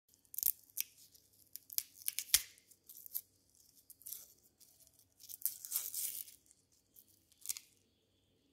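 Dry, papery outer skin of a yellow onion crackling and tearing as it is peeled off by hand, in irregular bursts with short pauses between them and one sharper snap a little past two seconds in.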